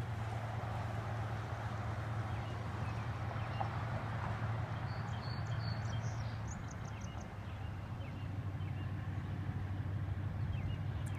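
A steady low engine hum, with a few short bird chirps about halfway through.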